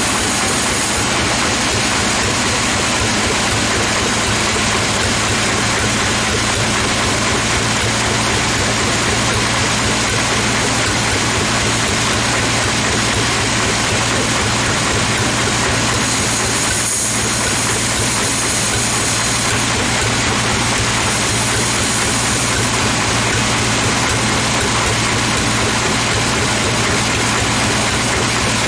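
Sawmill machinery running steadily: an unchanging machine drone with a low hum, with no sign of a cut starting or stopping.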